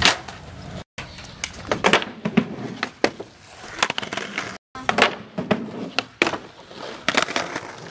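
Skateboards on concrete: wheels rolling and a string of sharp clacks from tail pops, board slaps and landings. The sound cuts out briefly twice, about one second in and again past the middle.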